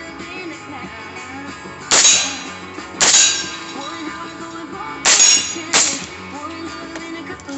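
Four gunshots, each with a ringing, clanging tail: two about a second apart near two seconds in, then two about half a second apart around five seconds in. Background music plays throughout.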